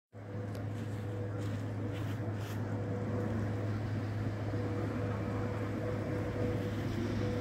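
A steady engine drone, low and unchanging in pitch with a fainter higher tone above it, starting abruptly.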